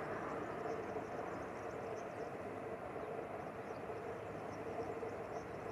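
Distant freight train of container wagons hauled by a Bombardier Traxx class 253 electric locomotive, running steadily along the track: an even rumble with a faint steady hum.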